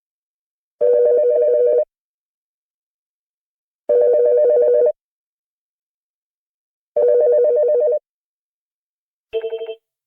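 Telephone ringing: three rings of about a second each, spaced about three seconds apart, each a warbling pair of tones. Near the end comes a click and a short, choppy fragment of ring.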